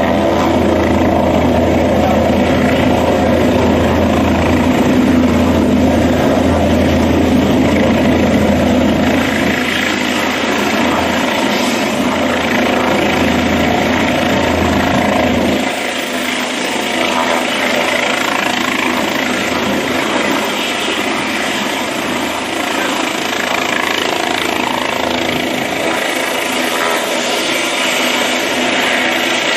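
Light turbine helicopter running on the ground with its rotors turning: a steady engine and rotor noise. The deep low rumble drops away suddenly about halfway through.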